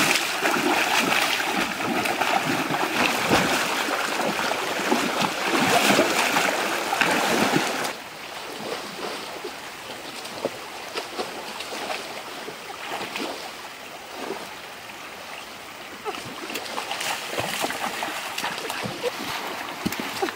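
Loud, continuous splashing as someone thrashes in shallow stream water, grabbing at fish by hand. About eight seconds in it cuts off abruptly to the quieter running of the stream, with occasional light splashes.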